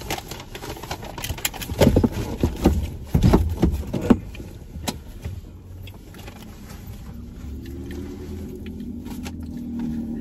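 Paper bag and paper food wrappers rustling and crinkling as takeout is unpacked, with a few heavier handling thumps in the first few seconds. After that the crinkling thins out and a steady low hum grows louder toward the end.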